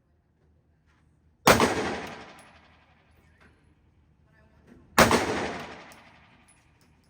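Two single shots from a Taurus GX4 9mm pistol, about three and a half seconds apart, each followed by an echoing tail lasting about a second.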